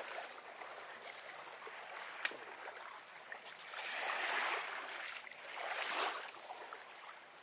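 Small waves washing in on the shore, a soft hiss of water that swells twice, about four and six seconds in. Two short clicks come about two seconds in.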